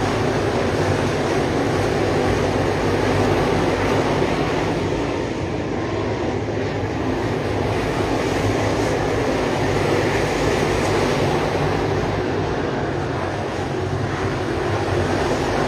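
A field of 604 crate dirt late model race cars running at speed around a dirt oval, their small-block V8 engines blending into a loud, steady drone.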